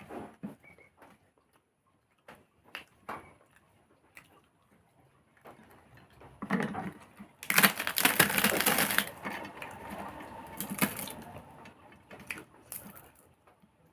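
Close-up chewing and crunching of crisp food, with a few soft mouth clicks at first and then a loud spell of crackling crunches lasting several seconds that fades away.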